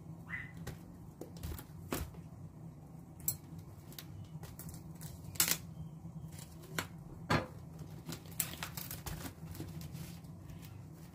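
Plastic-wrapped corn cobs being handled and unwrapped: plastic film crinkling, with sharp clicks and knocks as the packs and a kitchen knife are set down on the countertop, over a steady low hum.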